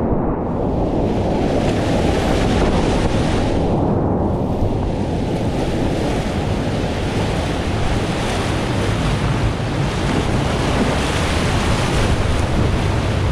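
Whitewater rapids rushing: a loud, steady rush of moving water that turns brighter and hissier after about four seconds.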